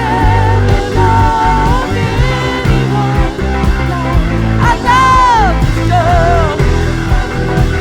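Rock music: a band with bass guitar and drums under a lead melody line that bends and slides in pitch, with a falling glide about five seconds in.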